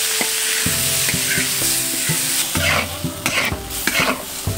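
Ingredients sizzling in hot oil in a large wok as they are stir-fried, with a run of stirring strokes scraping the wok in the second half.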